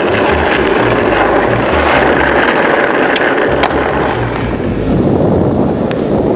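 Skateboard wheels rolling over rough street asphalt: a steady rumble, with a few sharp clicks about three seconds in and again near the end.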